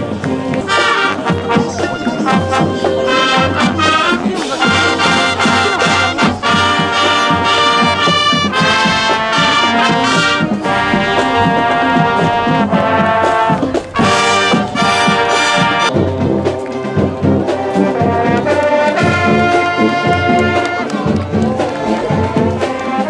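Brass band music, trumpets and trombones playing a tune in held notes, with a brief break about two-thirds of the way through.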